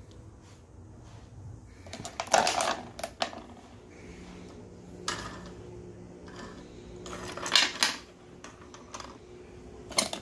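Plastic toys on a baby activity center being flicked and spun by hand: clusters of light clacking and rattling clicks, four times, with quiet between.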